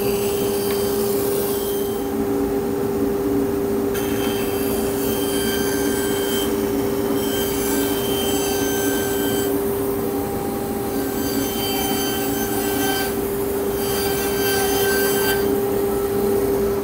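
Bandsaw running with a steady hum while its blade rips through boards. The cutting noise swells and eases several times as the pieces are fed through.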